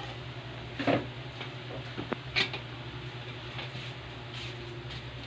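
Lit gas stove burner running with a steady low hiss and hum, with a few short light knocks about one, two and two and a half seconds in.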